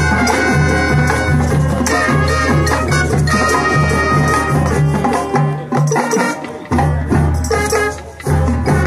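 High school marching band playing, with brass and percussion over a steady, pulsing bass line; the low end drops out briefly about six seconds in and again near the end.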